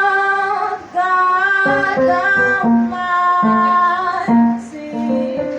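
A woman singing a melody with instrumental accompaniment.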